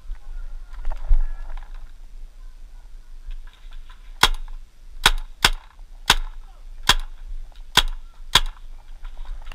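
Paintball marker firing seven sharp, quick shots, irregularly spaced over about four seconds, starting a little before the middle. A low thump and some rustling come about a second in.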